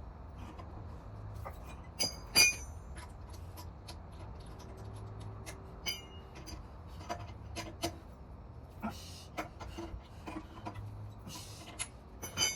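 Scattered metallic clinks and taps of tools or parts being handled, with one louder ringing clink a couple of seconds in and two short hisses later on.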